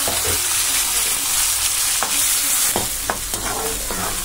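Chopped onions sizzling in hot oil in a kadai, with a steady frying hiss. From about two seconds in, a few sharp clicks and scrapes as a slotted steel spoon stirs them.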